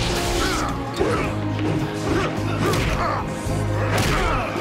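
Dramatic orchestral-style background score with several sharp punch and impact hits of a fistfight spread through it.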